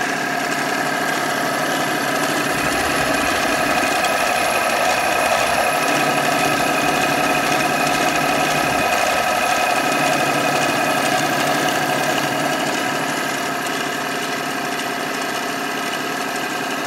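A 7x10 mini-lathe running steadily on power feed, its motor and gears whining in several steady tones, while an indexable insert turns down a 3/4-inch black steel pipe.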